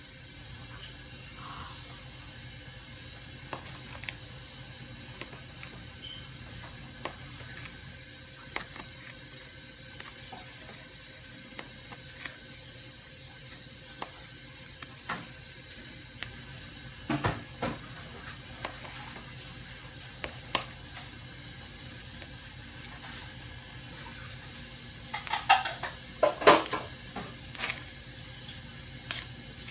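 Table knife cutting sausage into chunks on a ceramic plate: scattered light clicks and scrapes of the blade against the plate, with a louder cluster of scrapes near the end, over a steady hiss.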